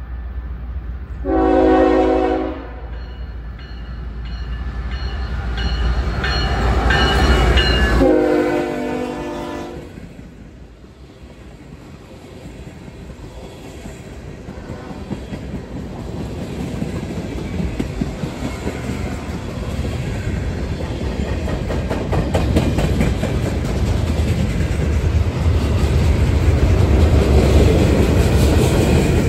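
Diesel freight locomotive sounding its horn, a short blast and then a longer one, over the low rumble of its engine as it approaches and passes. Then the string of freight cars rolls by, the wheels clicking and rumbling over the rails and growing louder toward the end.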